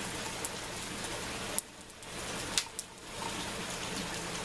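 A steady rush of running water from the aquaponics system, twice dropping away briefly in the middle. Over it come a few sharp clicks as hydroton clay pebbles go into the plastic net pot.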